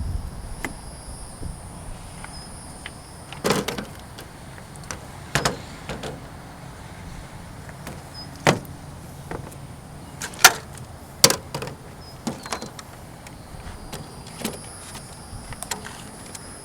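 Scattered sharp clicks and knocks from handling a nitro RC car and its parts, about eight in all, the loudest two close together near the middle.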